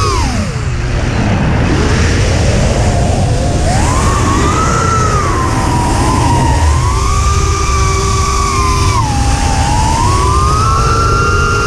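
Motors of a 3-inch FPV quadcopter whining. The pitch drops sharply at the start, then rises and falls several times with the throttle, over a steady rumble of wind.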